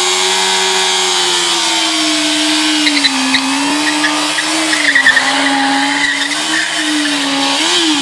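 Yamaha FZR250 inline-four engine held at high revs, the pitch wavering a little with the throttle, then rising briefly and dropping off near the end.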